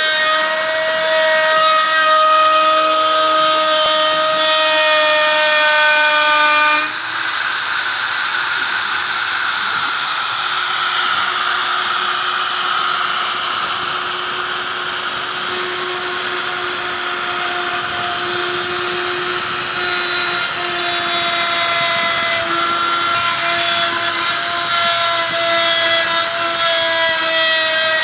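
CNC router spindle running with a steady high whine as it carves algarrobo wood, with a hissing cutting noise over it; the whine changes pitch about seven seconds in.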